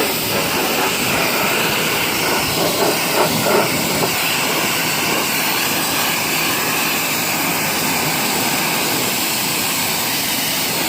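Pressure washer running, its jet of water spraying against the car body in a loud, steady hiss.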